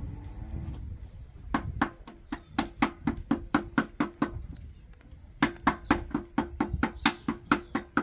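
Quick, even tapping on metal, about four to five strikes a second, in two runs with a short pause between, as parts are worked on a bare tractor engine block.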